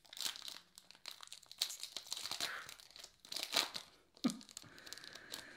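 Foil wrapper of a Topps Chrome baseball card pack being torn open and crinkled in the hands, in several crackly bursts.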